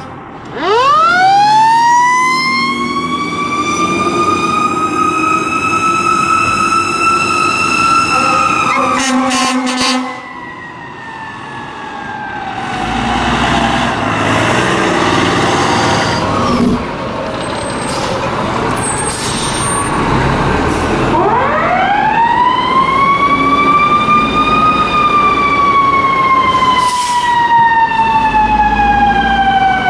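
Fire apparatus sirens and air horns on the way out of the station. A siren winds up from a low growl to a high steady wail and holds. A few short air-horn blasts sound about nine seconds in, then the siren slowly winds down. About twenty seconds in a second siren winds up, peaks and slowly falls away over the diesel engines running.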